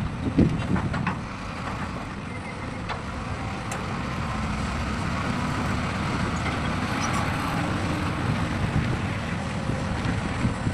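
Heavy diesel machinery engine running steadily with a low rumble, with a couple of knocks in the first second.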